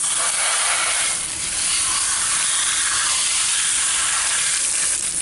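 Garden hose spraying a hard jet of water onto a dishwasher filter plate to rinse off the slime. The spray is steady and cuts off abruptly at the very end.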